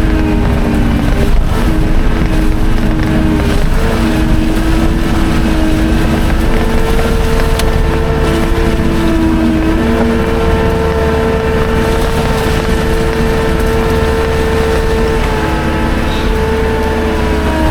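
Skid steer engine running loud and steady under work, its note stepping up and down in pitch several times as the throttle and load change.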